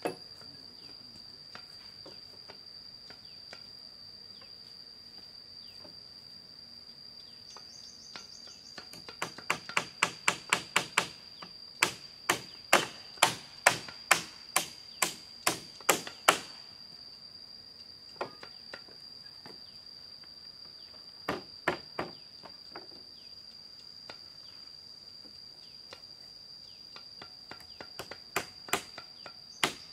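A hand tool striking bamboo in strings of sharp blows, about two a second, with pauses between runs. A steady high insect buzz goes on throughout.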